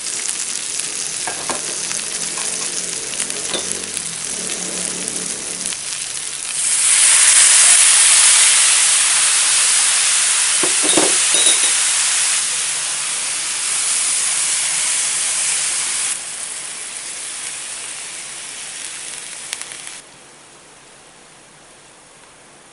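Pork pieces and onions sizzling in hot oil in an open frying pan: a steady, loud frying hiss that gets louder about six seconds in, eases off in steps, and drops sharply to a low bubble about twenty seconds in.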